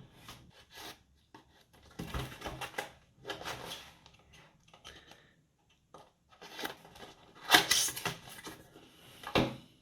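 Cardboard product box being opened by hand: several short bursts of handling and tearing noise with quiet gaps between, the loudest a little past halfway through.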